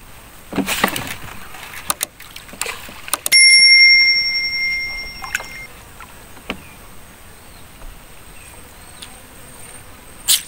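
A single bell-like ding about three seconds in: one clear high ringing tone that fades away over about two seconds. Scattered knocks and rustles come before it, and there is a sharp click near the end.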